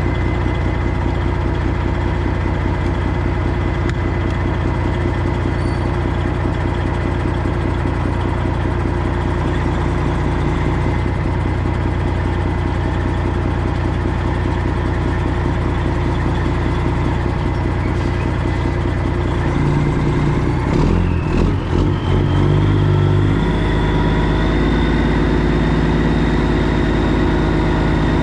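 Semi truck's diesel engine running at low, steady revs while the truck backs into a loading dock. A little over 20 seconds in, the engine speeds up, with a few short clicks, and then holds a steady, higher note.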